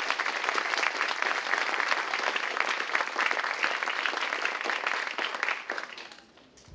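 Lecture audience applauding, the clapping dying away near the end.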